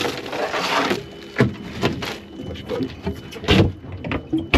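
Several sharp knocks and thumps on a boat, the loudest about three and a half seconds in. Under them runs a faint, steady high tone from the trolling motor's alarm, which is sounding for no known reason even though the battery is full.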